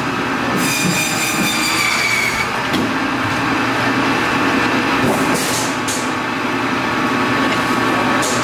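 Meat band saw running and cutting through a bone-in cut of beef: a steady whirring hiss, with a high squeal from the blade during the first couple of seconds and brief hissing rasps about five seconds in and again near the end.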